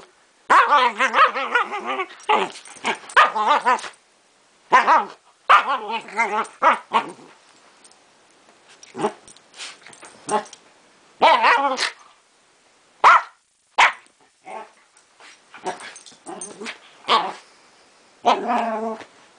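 Small terrier play-growling and barking under a blanket, in bursts of wavering, rumbling growls broken by short barks. There is a long stretch of growling in the first few seconds, then shorter outbursts with brief pauses between.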